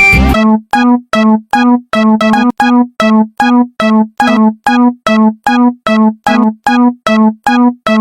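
Japanese railroad crossing alarm ringing: a pitched electronic ding repeating steadily about two and a half times a second, with a few strokes doubled as if two alarm bells are slightly out of step. It starts about a third of a second in, cutting off the music before it.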